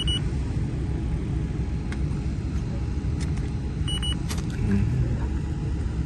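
Handheld electronic refrigerant leak detector giving a short high beep at the start and another about four seconds in, as its probe is swept along a microchannel coil, over a steady low rumble.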